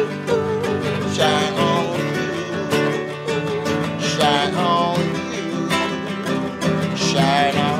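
Acoustic guitar strummed by hand in a steady rhythm.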